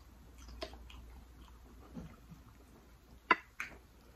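Faint, sticky handling of a cooked lobster tail: soft scattered clicks and wet ticks as the meat is worked from the shell and dipped into butter sauce. Two sharp clicks come a little over three seconds in.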